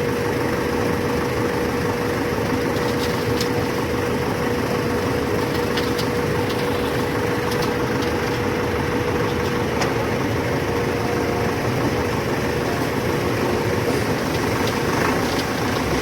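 Heavy diesel construction machinery running steadily at a constant speed, with a steady whine over the low engine rumble, while a bridge pile is being concreted.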